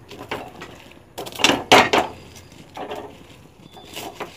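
Puffed rice being scooped and stirred by hand in a steel kadai, a few separate dry rustles and crunches, the two loudest about a second and a half in, as the muri is worked into warm melted jaggery.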